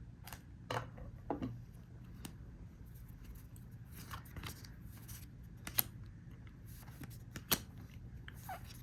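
One Piece trading-card booster pack and its cards being handled: scattered short crinkles of the foil wrapper and sharp clicks of cards, with the sharpest snaps about a second in and again near the end.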